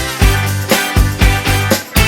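Upbeat background music with a steady beat, guitar and drums.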